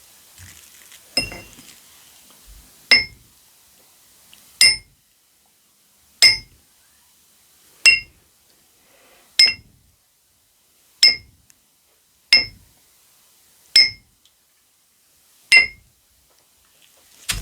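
Light ringing clinks at an even pace, about one every one and a half seconds, ten in all.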